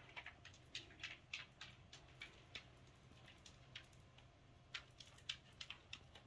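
Near silence broken by faint, irregular light clicks and ticks, bunched in a few spells.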